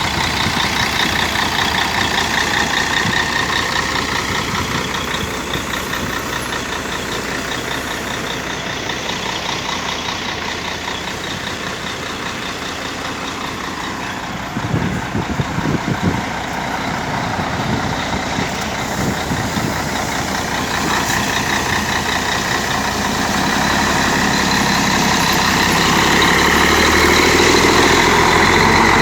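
Mercedes-Benz O-400 RSD coach's diesel engine running loud. It eases off a little in the middle, where a few knocks sound, and builds up louder again near the end.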